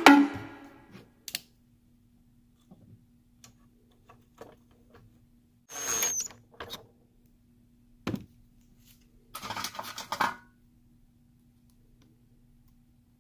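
Hand-tool work on a Sanitaire commercial vacuum: a screwdriver and metal parts clinking and scraping. There are a few scattered small clicks, a scrape about six seconds in, a sharp knock about eight seconds in and a short rattle near ten seconds, over a faint steady hum.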